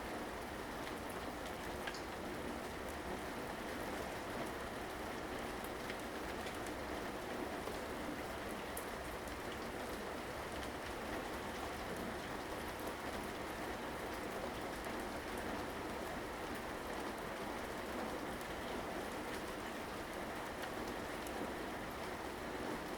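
Steady rain falling, an even hiss dotted with the small ticks of individual drops landing on surfaces.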